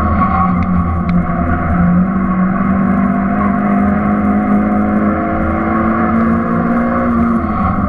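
Suzuki Swift's engine heard from inside the cabin, accelerating on track. Its pitch drops just after the start, climbs slowly for about seven seconds, then drops again near the end.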